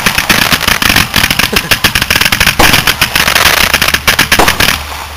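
Aerial fireworks bursting in a dense, rapid barrage of crackling pops and reports, which die away near the end.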